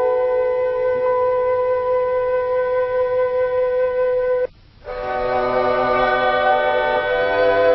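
Background instrumental music of long held notes. It cuts out for a moment about halfway, then resumes with several notes sounding together.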